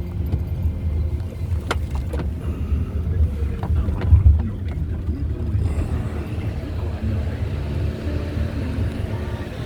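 Steady low rumble, with a few short clicks about two seconds in and a brief louder swell about four seconds in.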